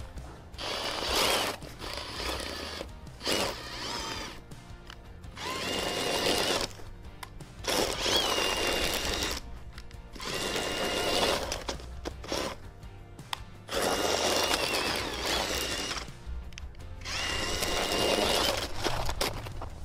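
Cordless drill driving a 3D-printed tank track through snow, run in about seven bursts of a second or two with short pauses between. In each burst the drill motor's whine rises and then holds steady.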